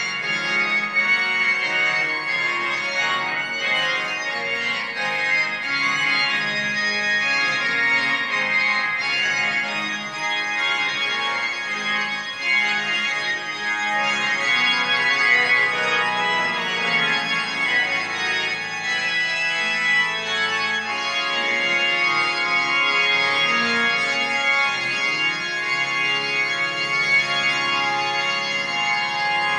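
Instrumental music of long, held, organ-like chords that change slowly, shifting to new chords about two-thirds of the way through.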